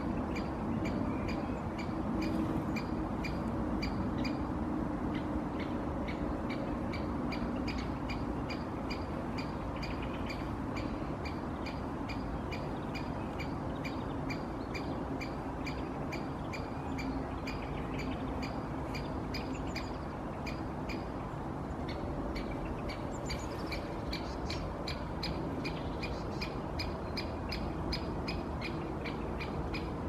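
Great spotted woodpecker giving its short, sharp single call over and over, about two to three calls a second, without letup.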